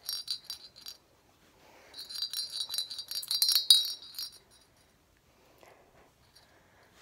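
Small metal jingle bell on a fursuit collar jingling as it is shaken: a short spell of rings in the first second, then a longer, denser and louder spell from about two seconds in to about four and a half.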